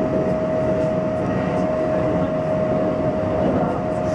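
Kintetsu 1233-series electric train running at a steady speed, heard from inside at the front: an even rumble of wheels on rail with a steady whine held at one pitch.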